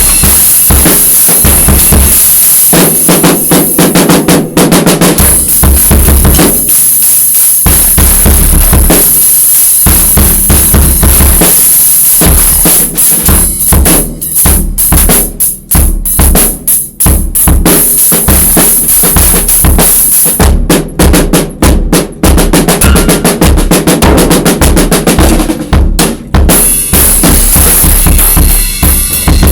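Acoustic drum kit played freestyle and loud: fast snare and bass drum strokes with rolls. The playing thins to sparser, separated hits in the middle and again a little later, then fills back in.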